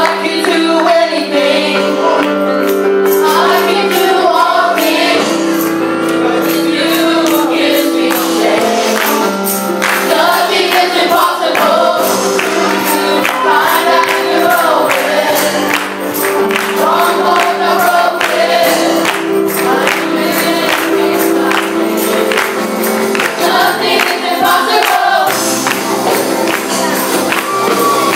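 A boy singing a gospel praise song into a microphone over a live church band of electronic keyboards, organ, electric guitar and drums, with steady rhythmic percussion and held keyboard chords.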